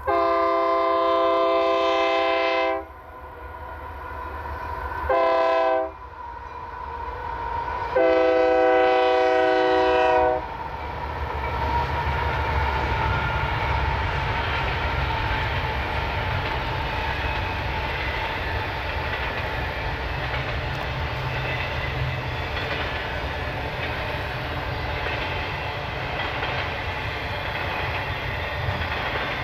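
Union Pacific diesel locomotive horn sounding three blasts, long, short and long, each a multi-note chord, echoing in the valley. After that the train rolls past with a steady rumble and clatter of wheels on rail.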